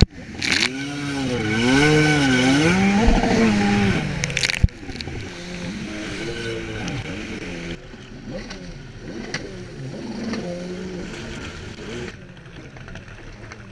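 Personal watercraft engine revving up and down as it rides over waves, with water spray. About four and a half seconds in it drops suddenly to a quieter, more distant watercraft engine that still rises and falls in pitch.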